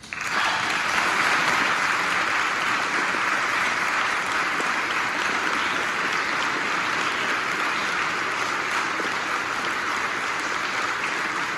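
Audience applauding, breaking out suddenly just as the choir's final chord has died away and then holding steady.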